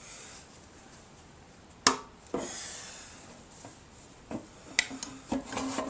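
Handling of a C-clamp and a 2x4 on a sheet-metal gas tank. There is one sharp knock about two seconds in, a short scraping rub right after it, then a run of smaller knocks and clicks with a brief low creak near the end.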